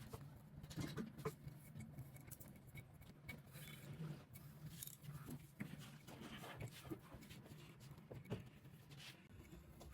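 Faint scattered ticks and rustles of hands pressing a rubber seal into its seat on a water pump, with a low steady hum underneath.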